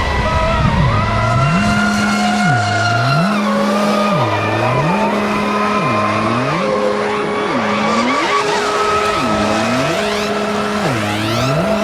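Electronic background music with a repeating bass figure that slides down and back up about every second and a half to two seconds, with rising sweeps near the end.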